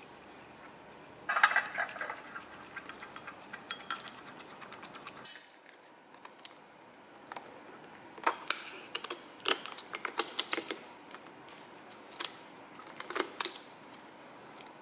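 A wooden utensil vigorously stirring a stiff vital-wheat-gluten starter in a glass bowl, a dense run of rapid clicks and taps against the glass for about four seconds. After a short lull, scattered sharp clicks and taps as a clear lid is stretched and pressed over the glass bowl.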